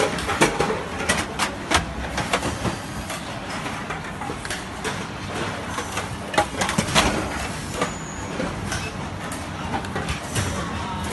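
Irregular clicks and knocks of energy meters being handled and set onto a laser marking machine's fixture, over a steady background machine noise.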